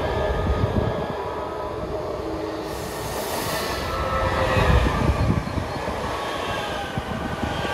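An Øresundståg electric multiple unit running past along the platform: a steady rumble of wheels on rail, with faint steady whining tones and a brief hiss about three seconds in.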